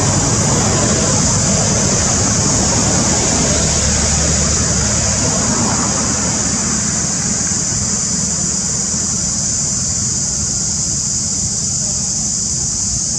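Steady outdoor noise: a continuous high-pitched insect drone over a low rumble that eases off over the first few seconds.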